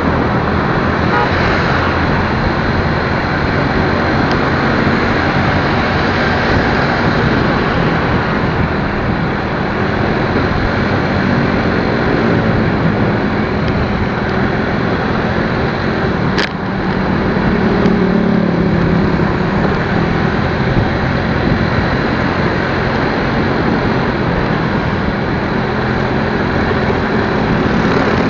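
Motor vehicle travelling on the road: steady engine and road noise, with one sharp click a little past halfway.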